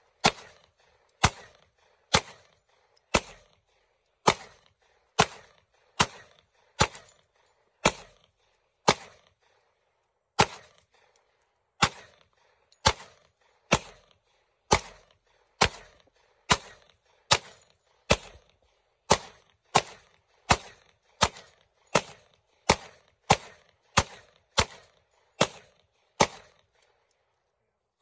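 Handgun shots fired singly in a steady string, about one a second, coming faster, a little over half a second apart, toward the end.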